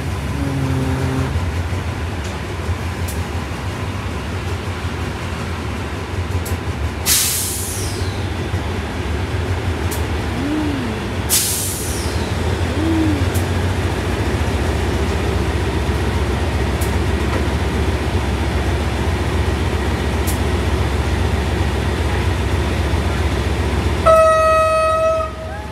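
Passenger train running along the track with a steady low rumble. There are two brief hissing rushes about seven and eleven seconds in. A train horn sounds one held blast of about a second and a half near the end.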